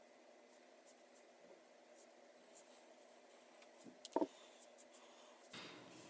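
Faint handling of paracord: soft rubbing and a few light ticks over a low hum, with one brief, louder rising squeak about four seconds in.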